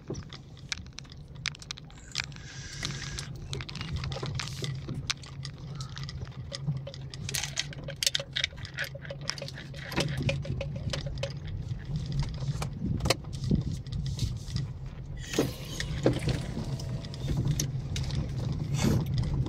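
Car driving slowly over a rough dirt and gravel track, heard from inside the cabin. There is a steady low rumble of engine and tyres, with frequent small rattles and knocks as the car jolts over the bumps.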